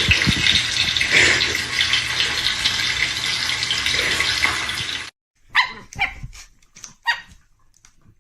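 A loud, steady rushing noise that stops abruptly about five seconds in, followed by four or five short, sharp dog barks or yips.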